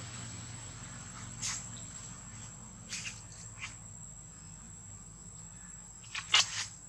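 Insects droning in one steady high tone. A few short sharp clicks cut across it, the loudest cluster near the end.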